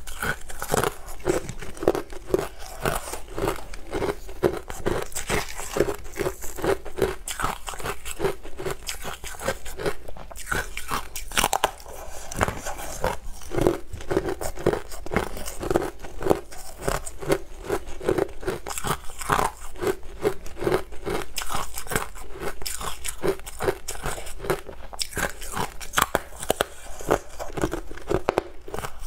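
Frozen honey ice slabs being bitten and chewed up close, a steady run of crisp, brittle crunches one after another.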